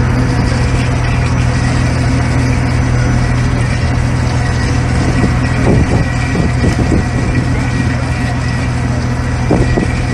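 The fishing boat's engine running steadily, a constant low drone, with faint voices about halfway through.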